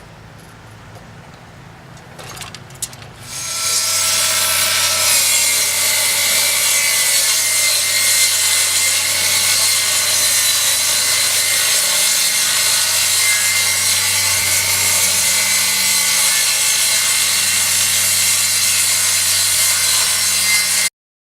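General International TS4004 10-inch table saw starting about three and a half seconds in, then running steadily while ripping a piece of wood, after a few faint clicks. The sound cuts off suddenly near the end.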